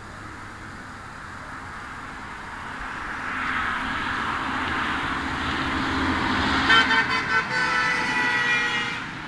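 A car approaching and passing, its road noise building over several seconds, then honking its horn in a quick run of short toots lasting about two seconds near the end, in reply to a roadside sign asking drivers to honk.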